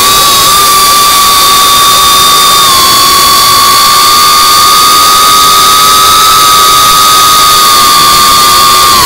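FPV quadcopter's electric motors and propellers whining at a steady high throttle, recorded by the drone's onboard camera: several close high-pitched tones over a rushing hiss of prop wash and wind.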